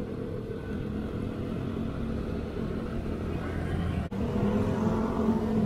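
Motorcycle engine running steadily on the move. A brief dropout comes about four seconds in, after which the engine note sits a little higher and louder.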